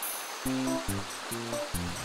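Background music of short held notes with light percussion ticks, starting about half a second in, over a steady rushing hiss like flowing water.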